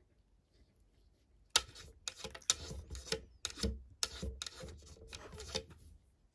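Latex-gloved fingers handling two dried dog milk chews, rubbing and scraping against them. There is a sharp click about one and a half seconds in, then a run of irregular rubbing strokes for about four seconds.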